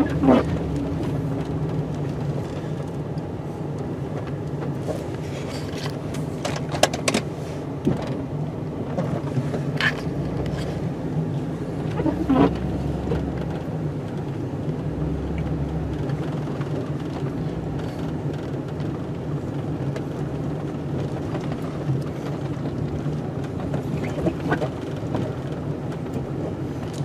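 Snowplow truck's engine running steadily as it works the driveway, with a few short clicks and knocks scattered through.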